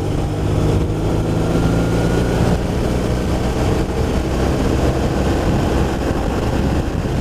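BMW R1200RT boxer-twin motorcycle engine running steadily while riding, under a steady rush of wind and road noise.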